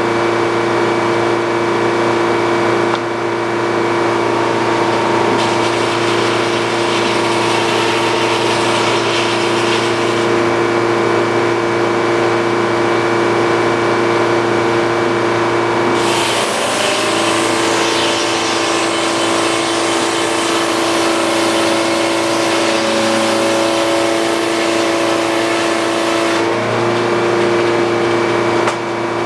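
Sawmill engine running steadily at constant speed. From about sixteen seconds in to about twenty-six seconds a harsher hiss joins it as the saw blade cuts through the wood.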